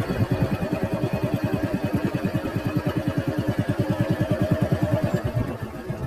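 Small motor-vehicle engine running at a steady speed on the move, a low, even pulsing of about ten beats a second.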